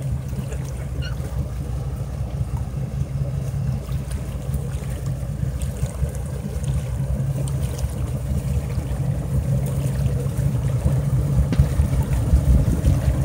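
A boat engine running steadily at low revs, a low hum that grows a little louder toward the end, with wind on the microphone.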